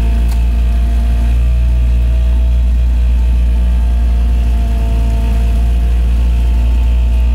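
Boat engine idling steadily, a loud, even low drone with a few fainter steady higher tones over it.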